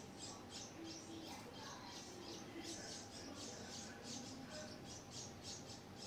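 Red-whiskered bulbul nestlings begging: a steady run of short, harsh, raspy calls, a few each second.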